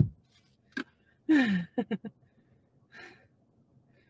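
A woman's voice: a short sighing exclamation falling in pitch, a few brief mouth sounds, then a breathy exhale.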